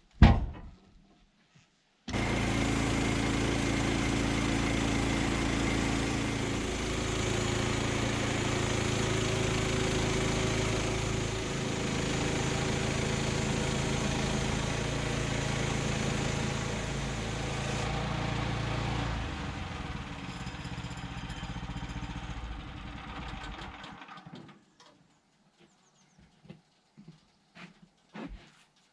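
Woodland Mill sawmill's small gasoline engine, which cuts in abruptly about two seconds in and runs at a steady pitch. It then winds down and stops about five seconds before the end, followed by a few faint ticks.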